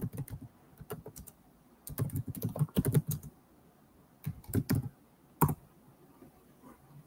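Computer keyboard typing in three short bursts, with one sharper, louder click about five and a half seconds in.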